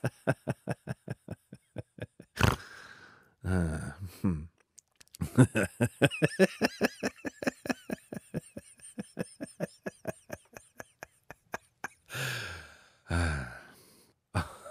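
A person laughing hard: long runs of quick, evenly repeated 'ha' bursts, about five a second, broken by a few longer sounds that fall in pitch and a short sharp burst.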